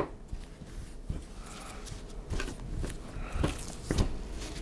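Rustling and handling of a fabric hammock ridgeline organizer as it is spread out on a tabletop, with a few light clicks and knocks.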